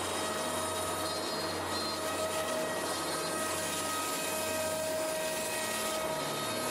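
AXYZ Woodworker CNC router spindle running as it cuts a wooden sheet: a steady whine over a steady rushing noise from the cutting and the dust extraction.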